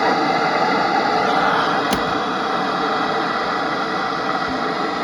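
Steady hiss of radio static, with a faint click about two seconds in.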